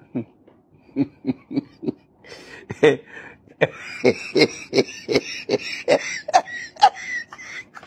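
A person's voice in quick short nonverbal bursts, about three a second, with a thinner, higher sound laid over it from about halfway through.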